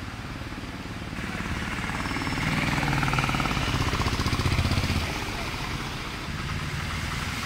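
A car driving slowly through floodwater close by, its engine running with tyres hissing through the water. It grows louder from about a second in, is loudest in the middle, then eases off, over the steady running of other engines.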